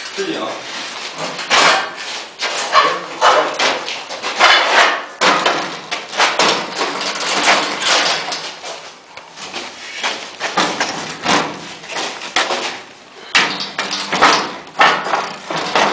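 Irregular metal knocks, clanks and scraping from handling a plaster rendering machine's steel mast and frame, with no motor running.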